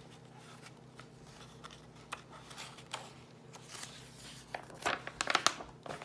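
A paper picture-book page being handled and turned: light taps and rustling, with a louder burst of crisp paper rustle about five seconds in as the page flips over.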